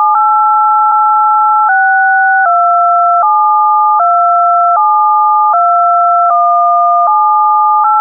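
Synthesized emergency-broadcast attention tone: two pure electronic tones sounding together, both jumping to new pitches about every three-quarters of a second in a repeating melody-like pattern, with a faint click at each change.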